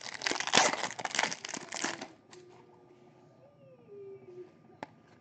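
Foil wrapper of a baseball card pack crinkling loudly as the pack is opened and the cards pulled out, for about the first two seconds, then only faint handling of the cards.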